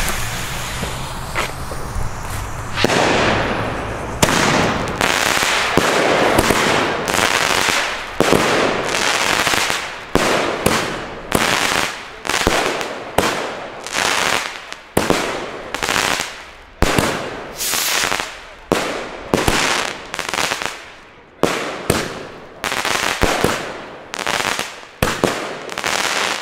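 Pyroland Hexenblitz consumer firework battery firing: a couple of seconds of steady hissing, then shot after shot, about one and a half a second, each a sharp report that fades out over about half a second.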